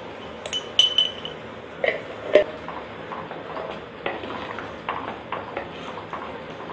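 Wooden spatula stirring thick masala in a clay pot: scattered knocks and scrapes of wood on earthenware, with a brief ringing clink about a second in.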